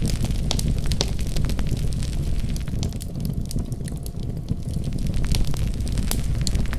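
Wood fire in a fireplace crackling: frequent sharp pops and snaps over a low, steady rumble of the flames. The pops thin out briefly about halfway through.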